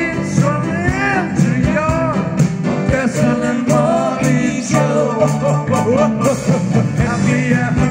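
Band music with a steady beat and a lead melody that bends and slides over the accompaniment.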